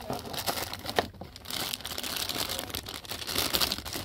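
Clear plastic bag around a spinning reel crinkling as it is handled and lifted out of its cardboard box, in irregular crackles with a sharp loud one about a second in.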